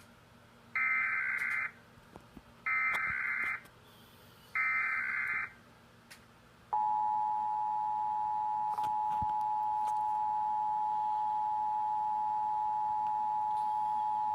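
Emergency Alert System tones opening a national EAS test: three short bursts of buzzing digital header data about a second apart, then the steady two-tone attention signal starting about seven seconds in and holding.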